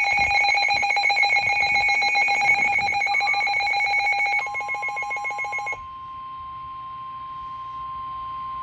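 Emergency alert tones ahead of a warning message. A shrill chord of steady tones sounds first, then about four seconds in a single steady tone of about 1,050 Hz takes over, quieter. That tone is the NOAA Weather Radio warning alarm, which signals that a warning message follows.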